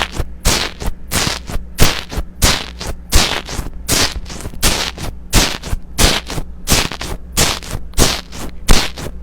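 Slime being squeezed and worked by hand, giving sharp popping crackles about three times a second, each dying away quickly, over a low steady hum.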